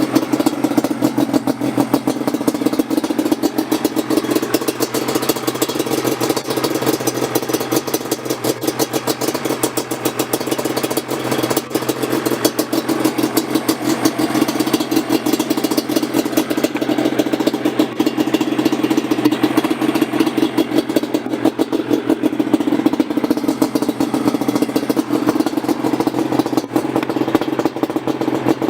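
A small vehicle engine idling steadily with a rapid, even firing beat, its level swelling slightly now and then.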